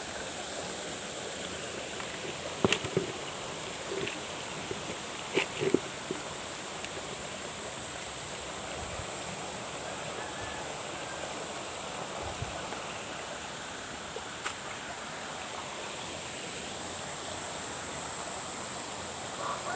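Steady rushing of flowing water with a constant high, thin tone above it, broken by a few sharp clicks and knocks about 3, 4 and 5 to 6 seconds in and once more near 15 seconds.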